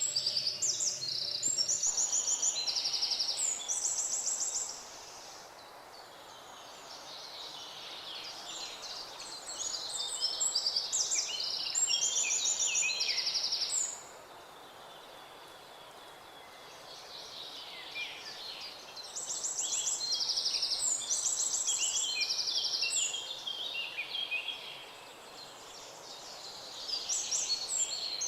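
A songbird singing in long bouts of rapid, high, varied notes and trills, each bout lasting a few seconds with pauses of several seconds between, over a steady soft hiss of natural background noise.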